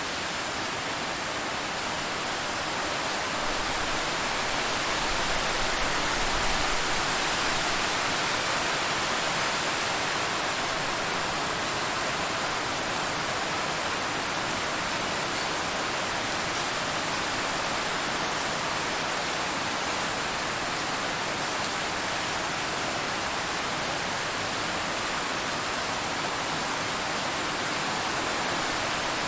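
Steady, continuous rain: an even rush of noise with no separate drops or thunder standing out, swelling slightly a few seconds in.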